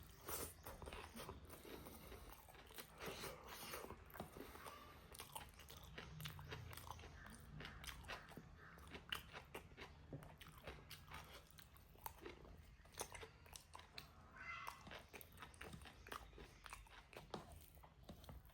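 A person chewing and biting pork close to the microphone, with crunching and many small, quick clicks and smacks of the mouth.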